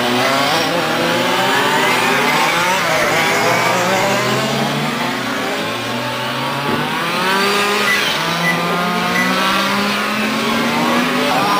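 Several fuel-engined radio-controlled race cars running on the track, their small engines overlapping in high notes that rise and fall as they accelerate and ease off.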